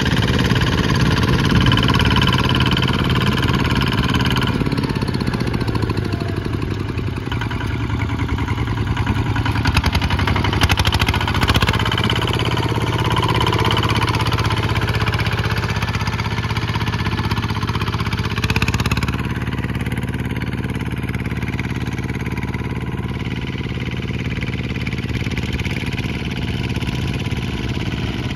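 Two-wheel walking tractor's single-cylinder diesel engine running steadily under load while it pulls a disc plough through dry soil. It is loudest around the middle, then runs a little lower and even after about two-thirds of the way through.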